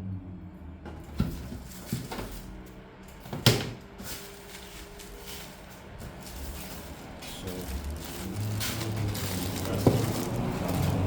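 Hard plastic and metal laptop parts being handled and set down, giving several sharp clicks and knocks, the loudest about three and a half seconds in.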